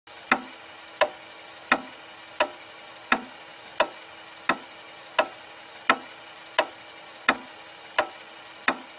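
Sharp ticks at an even pace, about three every two seconds, over a faint steady hum: clock-like ticking that opens the dance's music track.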